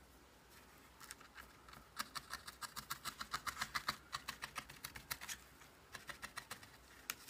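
Felting needle stabbing rapidly into wool over a foam pad, a quick run of soft clicks about five or six a second. The clicks start about two seconds in, pause briefly near the end, then resume.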